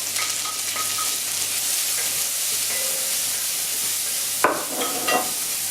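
Chopped garlic sizzling in hot oil in a pan, a steady frying hiss, kept moving so it doesn't burn. One sharp knock, a utensil against the pan, about four and a half seconds in.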